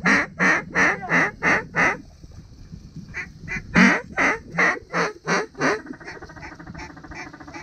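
Loud duck quacking in two runs of about seven or eight quacks each, about three a second, with fainter quacking between the runs and after them.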